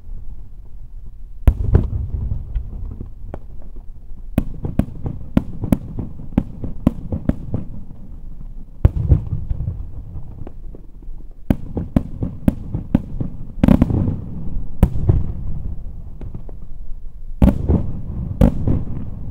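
Daytime aerial fireworks salute: an irregular string of sharp bangs from shells bursting overhead, each followed by a low rumbling echo. The bangs come in rapid volleys, the thickest a little past halfway and again near the end.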